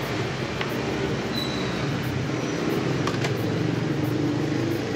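Street traffic running steadily, with engine hum that swells a little in the second half. A few light clicks, as of a spatula tapping the sandwich maker's metal plates, about half a second in and again about three seconds in.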